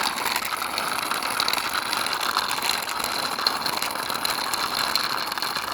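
Plastic wheels of a toy ice cream trolley rolling steadily along a hard surface as it is pushed by hand, a continuous rolling rattle.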